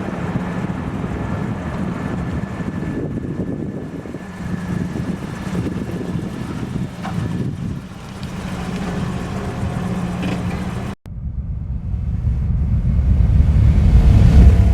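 Toyota Sera's 1.5-litre inline-four engine running steadily. After a sudden cut about eleven seconds in, a louder, deeper engine sound builds over the last few seconds.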